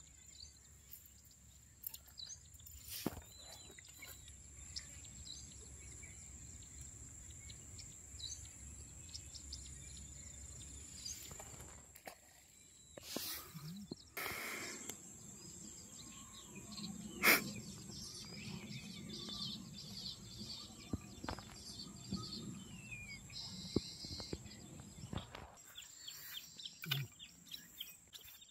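Outdoor ambience: birds chirping over a steady high-pitched drone, with a few sharp knocks and rustles scattered through it, the loudest about 17 seconds in.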